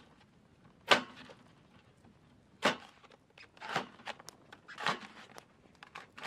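Schrade SCHF40 fixed-blade camp knife chopping carrot and celery on a paper plate: a handful of separate sharp chops, about a second apart.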